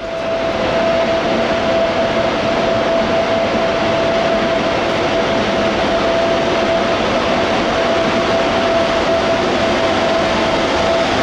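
ChS4 electric locomotive running with a loud, steady fan noise and a steady whine as it moves off slowly with its passenger train.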